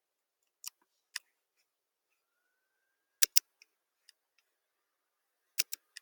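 A few short, sharp clicks against near silence: two faint clicks about a second in, a louder double click about three seconds in, and another double click near the end.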